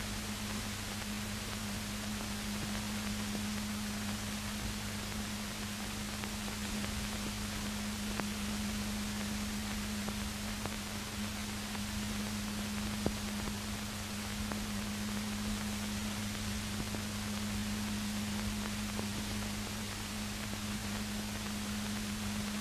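Steady hiss and low hum from an old film soundtrack with no sound on it, with two faint clicks.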